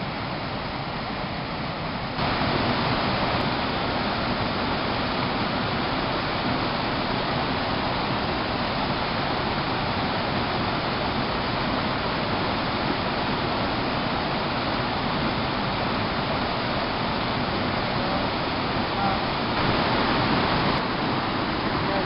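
Waterfall and river rapids rushing in a steady noise, which becomes louder about two seconds in.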